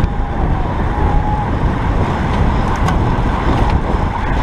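Wind rushing over the microphone, with tyre and road noise, from a road bike ridden at racing speed in a pack of cyclists. The noise is steady and heavy at the low end.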